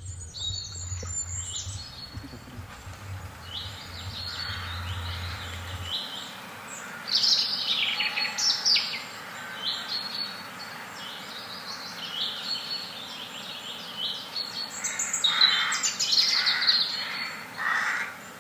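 Small birds chirping and calling, many short high chirps and quick falling notes, busiest about seven and fifteen seconds in. A faint low hum underneath stops about six seconds in.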